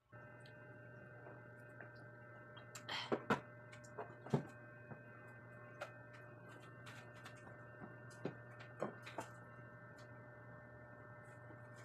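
A steady low hum with several faint steady tones above it, starting abruptly, broken by scattered light clicks and taps; the loudest taps come about three and four seconds in.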